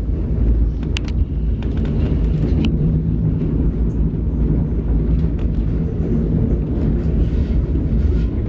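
Narrow-gauge passenger train running along the track: a steady low rumble of the coach rolling on the rails, with a few sharp clicks about one and two and a half seconds in.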